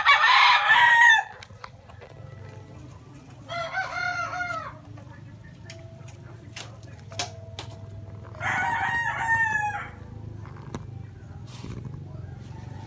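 Roosters crowing: three crows of about a second each, a few seconds apart. The first, right at the start, is the loudest and the other two are quieter.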